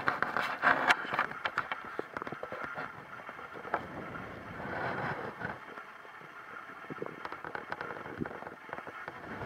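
Stomach gurgling: irregular bubbling and crackling, busiest in the first couple of seconds and thinning out in the middle.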